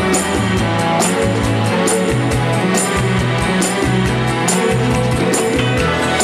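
Late-1960s orchestral pop music played by a full orchestra, with a moving bass line under a steady beat of bright percussion strokes.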